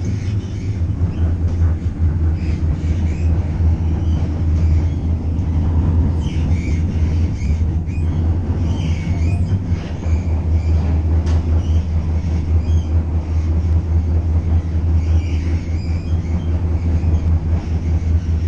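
Moving train heard from inside the carriage: a steady low rumbling hum of wheels and running gear, with occasional brief faint high squeaks.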